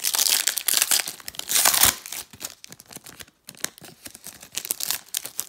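Foil wrapper of a Panini Prizm football card pack being torn open, loud through the first two seconds, then lighter crinkling as the wrapper is pulled apart, with another loud rip near the end.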